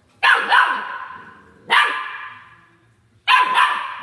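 An 8-week-old golden retriever puppy barking: two quick barks, a single bark about a second and a half in, then two more near the end, each one ringing off on the hard floor.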